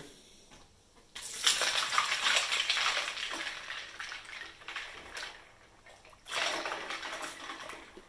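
Distilled water poured from a plastic jug into a bowl of soapy keycaps, splashing and filling. It starts about a second in, eases off, and picks up again briefly near the end.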